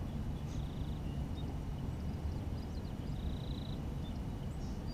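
A steady low outdoor rumble, with a small bird's short buzzy trill twice, about half a second in and again near three and a half seconds, and a few faint high chirps.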